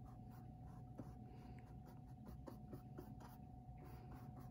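Faint scratching of a small paintbrush stroking paint onto a canvas, with a steady low hum underneath.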